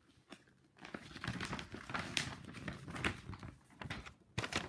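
Paper and packaging crinkling and rustling as the contents of a trading card deck box are handled, in quick irregular scrapes that start about a second in.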